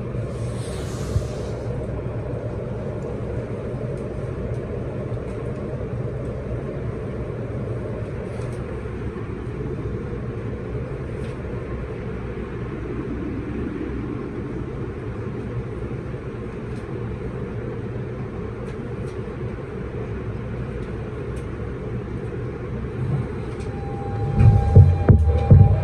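Kawasaki R160B subway train with Siemens propulsion running through the tunnel: a steady low rumble of wheels and running gear, growing much louder near the end with a steady whine coming in.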